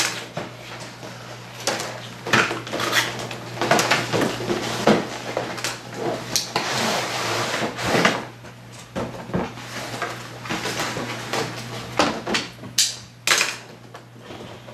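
Cardboard boxes and packaging of Nerf Rival blasters being handled and opened: many short knocks and scrapes of cardboard and plastic, with a longer stretch of rustling and sliding about seven seconds in.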